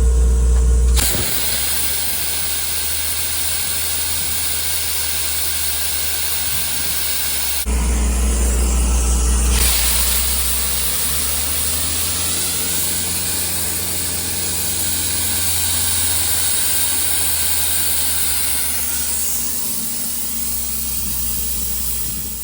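Abrasive blast nozzle (Kennametal Blast Ninja, number 4) blasting at about 100 PSI: a loud, steady rushing hiss with a low rumble underneath. It starts abruptly and tails off near the end.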